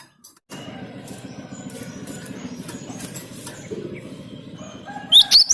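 A steady low rumbling noise with scattered clicks. About five seconds in, a cinereous tit breaks in with loud, sharp, repeated chirping notes, about four a second.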